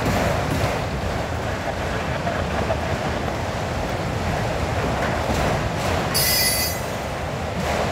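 Manifest freight train cars rolling past, a steady rumble and clatter of steel wheels on rail. A brief high-pitched wheel squeal comes about six seconds in.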